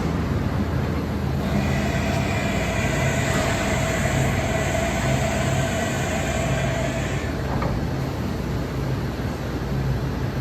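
HAAS EC1600 horizontal machining center running with a steady hum; about a second and a half in, a whine of several tones starts up over it and cuts off about seven seconds in, followed by a small click.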